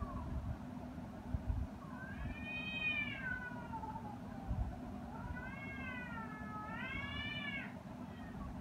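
An animal's long, drawn-out calls that slide up and down in pitch: the tail of one falling call at the start, an arched call about two seconds in, and a longer wavering call in the second half. A steady low rumble lies underneath throughout.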